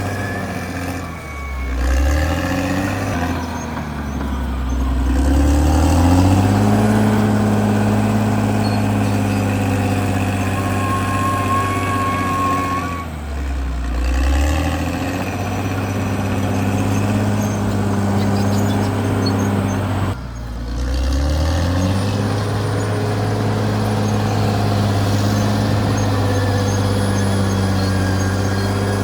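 Caterpillar D6R XL bulldozer's diesel engine running hard, its pitch sagging and climbing back up three times, about a second, 13 seconds and 20 seconds in. A brief high squeal sounds about 11 seconds in.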